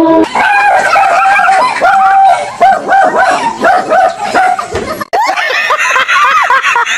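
Dog barking rapidly and over and over, a few barks a second, at life-size fake lion and tiger toys. About five seconds in it cuts off suddenly and people's loud laughter takes over.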